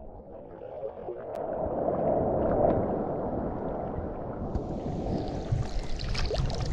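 Water sloshing and washing in a steady rushing wash, with a brighter hiss joining about four and a half seconds in.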